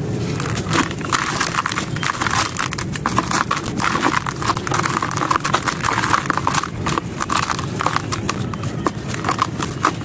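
Gritty sand-cement (sandment) chunks being crushed and crumbled, giving a dense, irregular crackling crunch of many small cracks.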